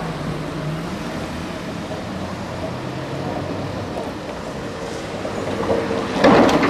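Gotha-built tramcar running toward the listener on grass-laid track, getting louder as it nears. Near the end it passes close by with a sudden loud rattle of wheels on rail and a steady squealing tone.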